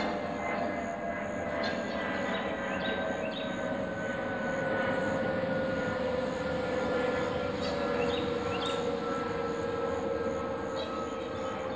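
A distant engine drone with tones that fall slowly and steadily in pitch throughout, as of a passing motor vehicle or aircraft. Short high chirps sound now and then over it.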